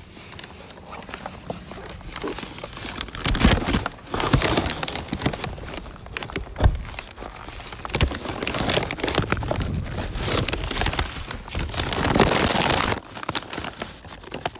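Close rustling and crinkling right against the phone's microphone, with irregular knocks and scrapes as it is handled. The noise comes in uneven stretches, busiest about a quarter of the way in and again through the second half.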